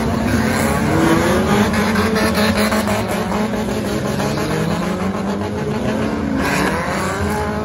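A pack of stock cars racing on a dirt track, several engines revving and accelerating at once, their pitches rising and falling over each other. A brief burst of noise about six seconds in.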